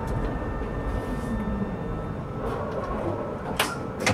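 Tram running noise heard from the driver's cab: a steady low rumble with a faint motor tone falling in pitch, and two sharp clicks near the end.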